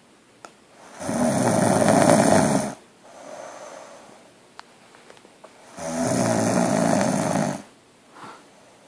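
A sleeping woman snoring loudly: two long snores about five seconds apart, with a softer breath between them.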